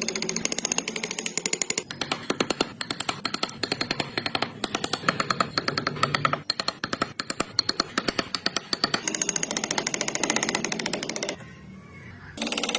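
A power tool working wood, with a fast, rattling hammer-like stroke. It drops out briefly about eleven seconds in, then starts again.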